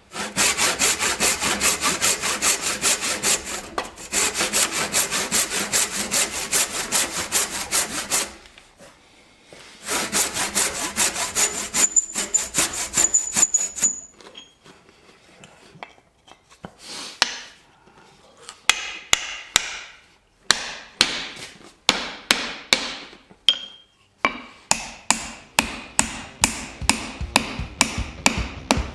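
A hand tool working wood with fast back-and-forth strokes, about four a second, in runs broken by short pauses. In the second half the strokes are sharper and more spaced out, some with a faint ring.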